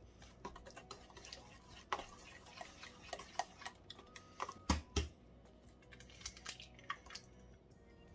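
A metal fork clicking and scraping against a stainless steel mixing bowl while stirring batter, in a run of light, uneven ticks. About halfway through come two heavier knocks close together as an egg is cracked and added to the batter.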